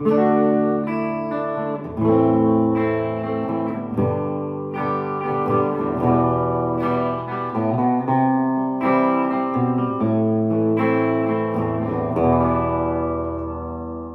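1960s Höfner Verithin thin hollow-body guitar playing a slow run of chords, each struck and left to ring. The last chord rings on and fades near the end.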